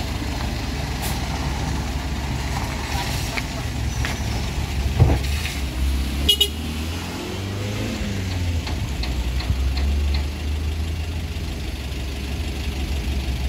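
Pickup truck engines running on a steep climb, with a Suzuki Carry pickup passing close by about midway and a short sharp sound as it goes past.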